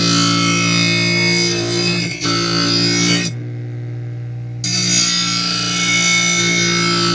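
A Magna-Matic blade sharpener's grinding wheel runs with a steady hum while a lawn mower blade is ground against it, giving a loud hissing grind. The grind stops for about a second a little past midway, while the wheel hums on, and then starts again.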